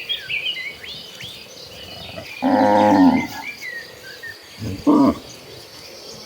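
Cow mooing once, a call just under a second long about two and a half seconds in, with a short second call near five seconds. Birds chirping high above.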